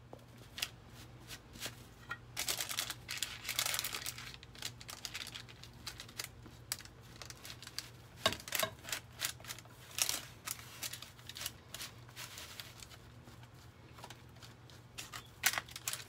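Cookie dough being pressed and spread into a parchment-lined metal baking pan by hand and with a spatula: parchment paper crinkling, with irregular scrapes and light taps against the pan. A low steady hum runs underneath.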